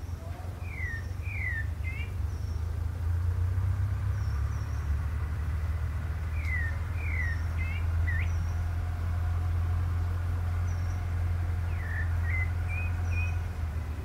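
Pale-breasted thrush singing: three short phrases of slurred, falling whistled notes, several seconds apart, with a few brief high chips between them. A steady low hum runs underneath.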